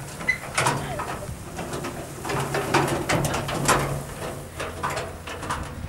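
Wooden two-wheeled hand cart rattling and knocking as it is pulled over a rough dirt track, in irregular short clatters.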